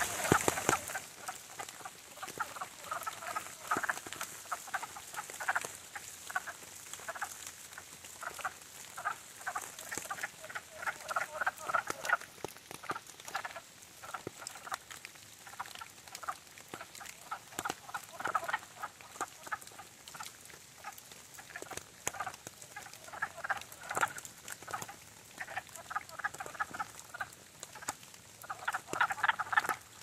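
A chorus of male wood frogs calling at a breeding pool, many short chuckling calls in clusters overlapping one another, loudest near the end. Rain ticks and patters beneath the calls.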